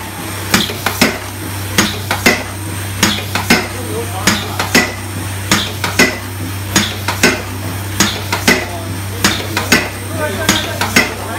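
Power press stamping aluminium foil containers: sharp metallic clanks and rattles come about twice a second over a steady low hum.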